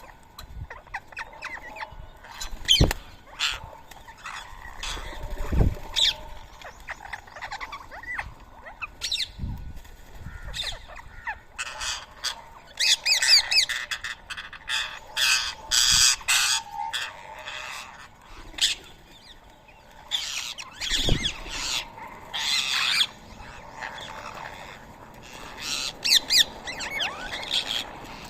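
Rose-ringed parakeets squawking, many short harsh high-pitched calls overlapping, busiest in the middle and again about two-thirds through. A few dull thumps are heard among them.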